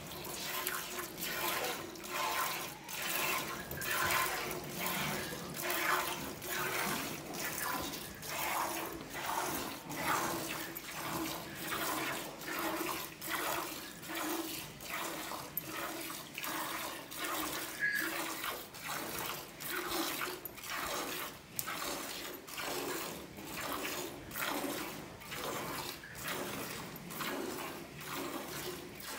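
Milk squirting by hand from a cow's teats into a steel pot already part full of frothy milk, in a steady rhythm of short squirts.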